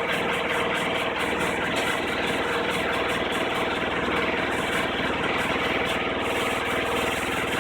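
Samsung WF405 front-loading washer in its spin cycle, drum spinning with a steady hum under a rapid, continuous banging. The noise is a fault that appeared a couple of months after repairs; the uploader says the machine vibrates but not the way it does with an unbalanced load.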